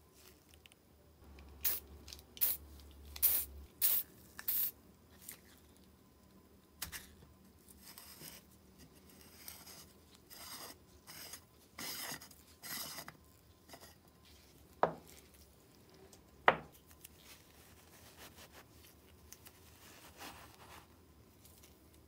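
Small brass lighter parts being worked by gloved hands: short bursts of rubbing and scraping as the threaded brass pieces are turned and unscrewed, then two sharp clicks about a second and a half apart. Softer handling follows as the old cotton wadding is pulled out of the brass body.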